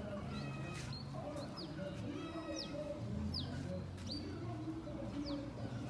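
Birds calling: a small bird repeats a short, high, falling chirp about once a second, over low clucking from chickens.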